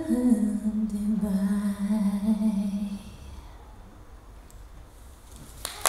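A woman singing a cappella holds the final low note of her song for about three seconds until it fades away. After a short quiet pause, applause breaks out at the very end.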